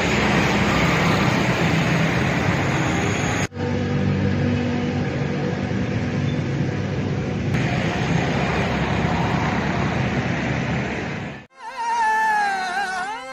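Steady street traffic noise from passing vehicles, broken by a brief cut about three and a half seconds in. Near the end it gives way to singing with a wavering, ornamented melody over music.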